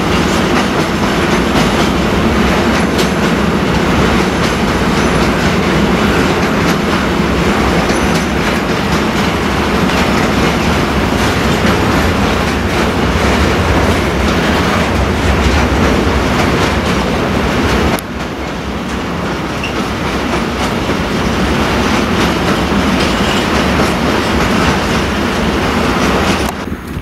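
Container freight train's wagons rolling past: a steady rumble of wheels on rail with rapid clattering over the rail joints. The noise drops suddenly about eighteen seconds in and falls away again just before the end.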